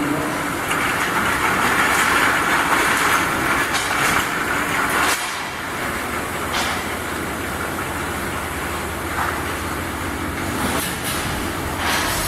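Glass bottle washing machine running, a steady mechanical clatter. It is louder and noisier for the first few seconds, with a few sharp knocks scattered through it.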